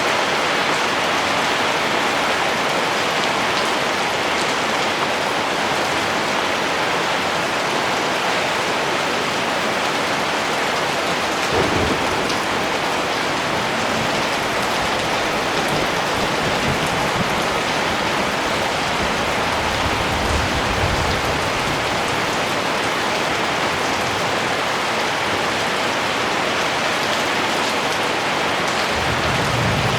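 Heavy rain falling in a steady hiss, with low rumbles of distant thunder: a short jolt about twelve seconds in, then rumbles around twenty seconds and again near the end.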